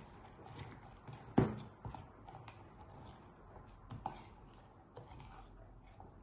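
Spoon or spatula gently stirring thick bean-brownie batter with walnuts in a bowl: soft irregular scraping and clicking, with a sharp knock against the bowl about a second and a half in and a lighter one around four seconds.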